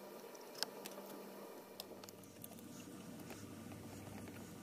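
Faint scattered clicks and light taps of small metal parts being handled as the pump is taken out of a pressure lantern's fount, with one sharper click about half a second in.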